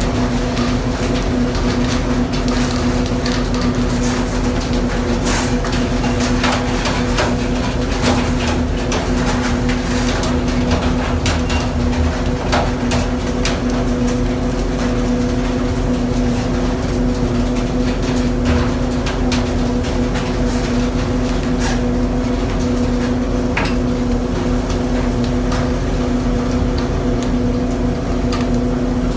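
Fishing vessel's machinery humming steadily at a constant pitch, with scattered sharp knocks and clatter from the pole-and-line fishing on deck.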